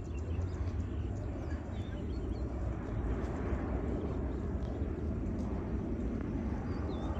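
Steady distant jet rumble of a Boeing 737 airliner flying over on approach with its landing gear down, swelling slightly about three seconds in. Small birds chirp faintly now and then.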